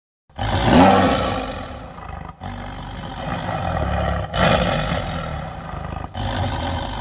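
Dragon roar sound effect: a string of deep, rough roars, cut off abruptly and restarting three times, so four roars in all.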